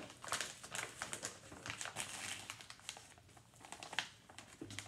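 Plastic vacuum-sealer bag of flour crinkling under the hands as it is handled and smoothed flat, a string of irregular crackles that eases off about three seconds in before picking up again.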